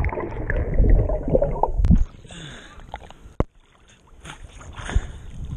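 Pool water sloshing and gurgling, heard through a submerged camera: a muffled underwater rumble for about two seconds, quieter after that, then splashing as the camera breaks the surface near the end.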